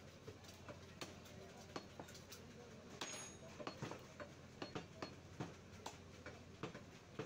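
Butcher's cleaver chopping beef on a wooden block: irregular sharp knocks, roughly one to two a second, coming faster in the second half. A brief rushing scrape sounds about three seconds in.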